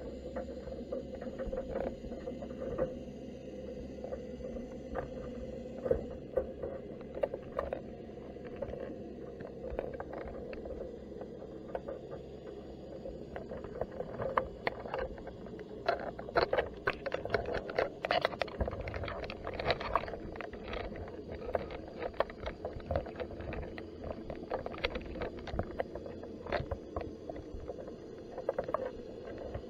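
Underwater sound picked up by a camera sitting inside a crab pot on the seabed: a steady low rumble with faint hum, and scattered sharp clicks and taps that come thickest in the middle.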